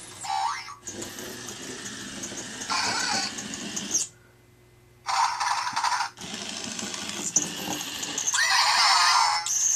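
Zhu Zhu Pets robotic toy hamster making its electronic squeaks and chirps in several short bursts, with a brief quiet gap about four seconds in.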